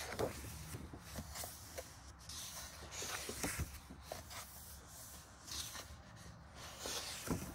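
Paper pages of a colouring book being turned and handled: several rustling swishes of paper with small knocks.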